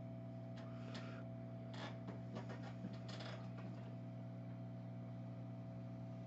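Steady low electrical hum from the repair bench equipment during desoldering, with a few faint scratching clicks as tools work the solder on the phone's circuit board.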